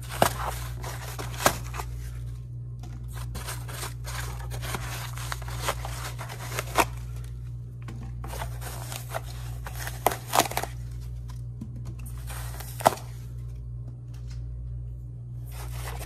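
Spray foam insulation being torn out by hand from between wooden wall studs: irregular crunchy tearing and crackling, with several sharp snaps, the loudest late on. A steady low hum runs underneath.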